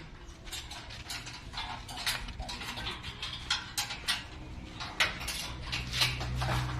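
Corn sheller machine running: a steady low hum under dense, irregular rattling and clattering, the hum growing louder about five and a half seconds in.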